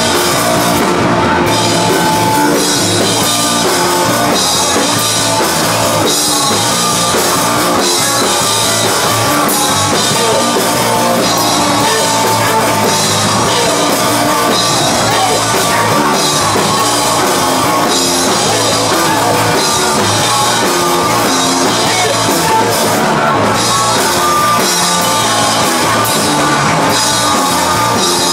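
Live rock band playing loud, continuous music with a drum kit, amplified through a PA.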